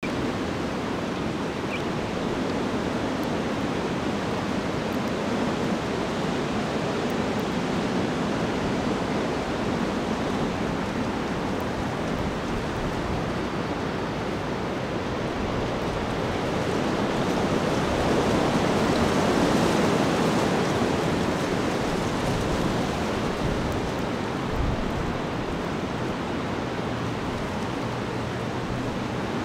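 Steady rushing outdoor noise with no bird calls, swelling for a few seconds just past the middle.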